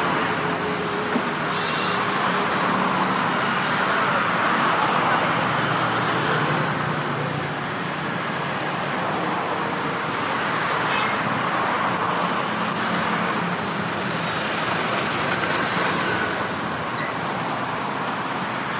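Steady road traffic noise, a constant hum of passing vehicles with no single one standing out.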